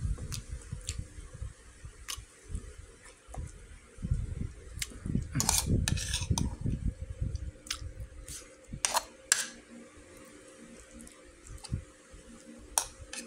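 Metal spoon scraping and clinking against a bowl while food is scooped up, in scattered sharp clicks, a cluster of them about halfway through.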